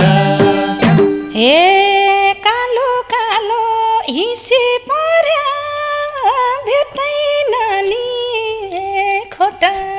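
Nepali live dohori folk music, instrumental between sung verses: a lead melody line of long held notes that bend and glide, over light percussion.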